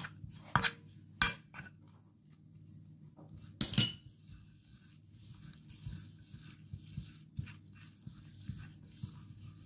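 A metal spoon clinking and scraping against a ceramic plate as a chermoula marinade of herbs, garlic, spices, lemon and oil is mixed, with a louder clatter about three and a half seconds in. After that come only soft small ticks as the mixture is worked by hand, over a low steady hum.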